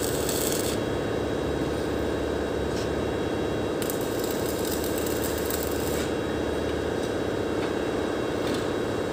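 Electric arc welding on a steel frame: the arc crackles and hisses in two short runs, the first stopping just under a second in and the second lasting from about four to six seconds in. A steady hum runs underneath.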